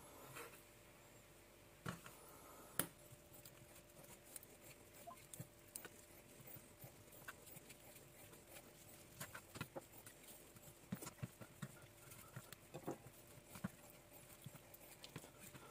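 Faint, irregular clicks and taps of a kitchen knife against a wooden cutting board as raw chicken thigh meat is cut away from the bone, coming more often in the second half.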